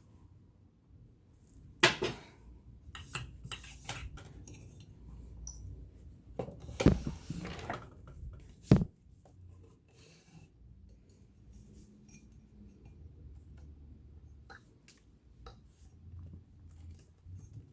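Metal clinks and knocks from hands and tools working on an all-metal vintage sewing machine, with a few louder sharp knocks in the first nine seconds and fainter ticks after.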